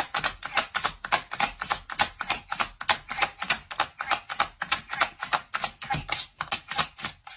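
Dog's paw hammering a recordable pet talking button, about five or six presses a second: rapid plastic clicks, each cutting off and restarting the recorded word 'treat'. The clicking stops just before the end.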